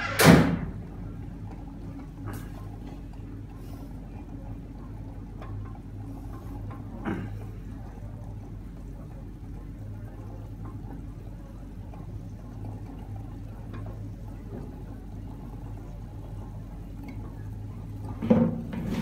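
Two electric hot plates heating beakers of sodium acetate solution: a steady low hum with a faint liquid simmering sound. A sharp knock comes just after the start and a fainter one about seven seconds in.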